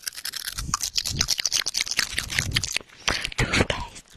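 Close-miked ASMR mouth sounds: a rapid, dense run of wet clicks and smacks as fingers with long nails and rings work in and around the open mouth.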